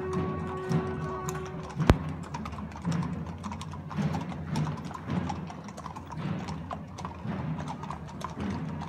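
Horses' hooves clip-clopping on a paved street as a mounted procession walks past, an irregular patter of hoof strikes. A single sharp knock about two seconds in is the loudest sound, and held musical notes end just before it.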